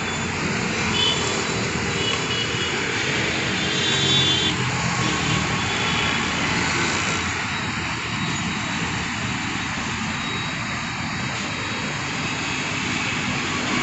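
Steady street traffic noise: engines of passing vehicles running under a constant rushing haze, swelling slightly about four seconds in.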